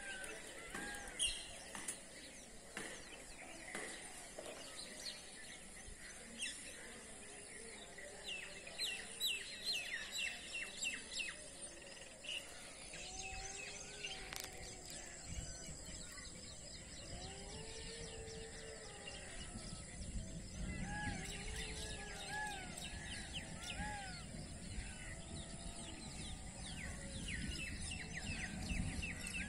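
Birds calling outdoors: quick bursts of high chirping and twittering, and a run of repeated arching whistled notes about two-thirds through, over a steady hiss. A low rumble comes in for the second half.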